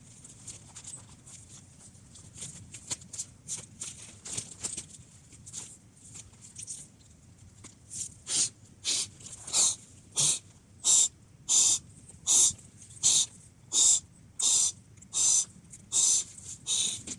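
A dog panting close to the microphone. It starts with faint, quicker breaths, then from about eight seconds in turns to loud, regular breaths at a little more than one a second.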